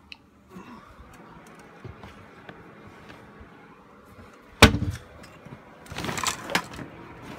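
Things in a closet being moved by hand: a single sharp knock about four and a half seconds in, the loudest sound, then a second or so of rustling and clattering as the contents of a basket are shifted.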